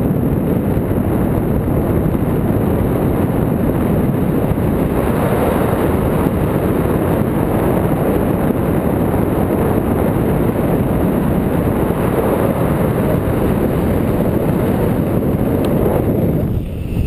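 Wind from the paraglider's flight speed buffeting a selfie-stick action camera's microphone: a loud, steady rush of noise, dipping briefly near the end.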